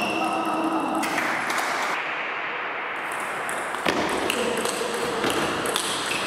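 Table tennis ball clicking off bats and table: a serve about four seconds in, followed by quick back-and-forth strokes of a rally.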